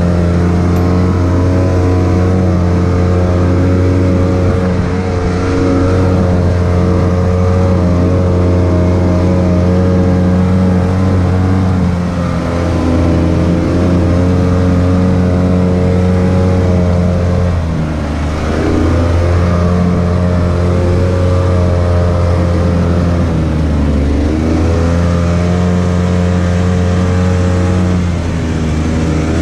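Side-by-side UTV engine running steadily at a constant pitch, eased off and brought back up twice, the pitch dipping and climbing again about two-thirds of the way through and near the end.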